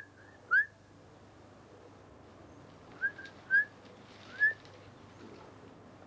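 Short rising whistled notes, each a quick upward sweep that levels off: two near the start and three more from about three seconds in.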